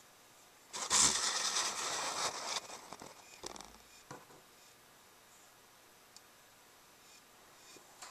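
Camera handling noise: a loud scraping, rustling burst about a second in, lasting nearly two seconds, then a few fading crackles.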